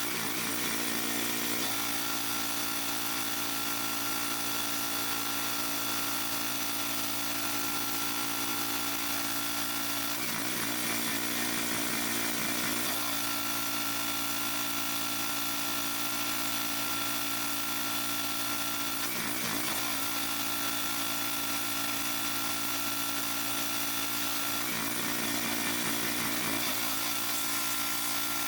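Petrol-engine pressure washer running steadily at a constant speed, its small engine and pump humming under the hiss of the spray, with a few brief shifts in tone along the way.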